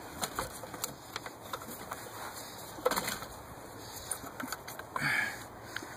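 Spark plug wire being routed back through its plastic clips in the engine bay: scattered small clicks and rattles, with a sharper click about three seconds in.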